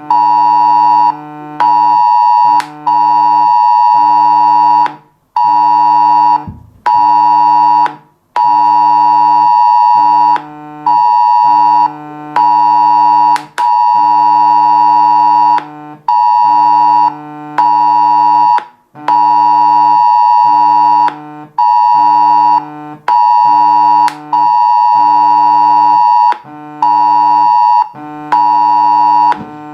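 Mobile phone emergency alert tone sounding during a test warning: a loud electronic tone, the same pitch throughout, cutting on and off every second or two.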